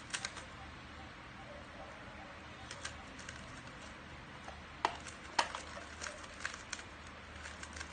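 3x3 speed cube being turned by hand during a solve: irregular light clicks of the layers turning, with two sharper clacks about five seconds in.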